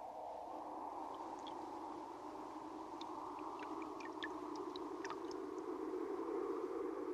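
An eerie film soundtrack: a steady low drone with scattered short, high pings from about a second in until near the end.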